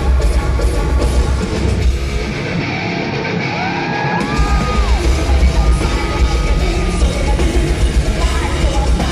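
Loud live heavy metal with a female lead vocal and yells over distorted guitars, bass and drums, in a large hall. About two and a half seconds in, the heavy low end drops out for a moment with gliding high notes over it, then the full band kicks back in.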